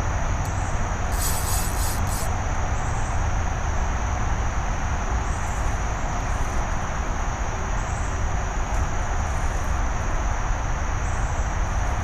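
A steady high-pitched chorus of night insects over a constant low rumble, with a brief hiss about a second in.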